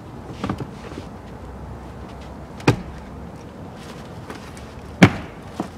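Plastic glovebox of a 2017 Kia Rio being fitted back onto its lower mounts in the dashboard: two sharp plastic knocks a couple of seconds apart, the second louder, with a few light clicks around them.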